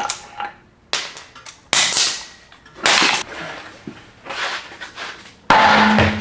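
A series of sharp strikes, four loud bangs about a second or more apart, each dying away quickly; the last is longer and carries a steady low hum.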